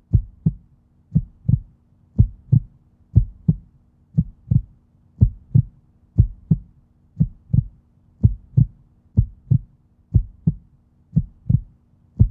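Heartbeat sound effect: paired low thumps (lub-dub) repeating steadily at about one beat a second.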